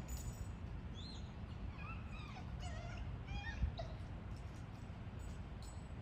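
A dog whining: a string of short, high calls that rise and fall in pitch through about the first four seconds, over a steady low rumble.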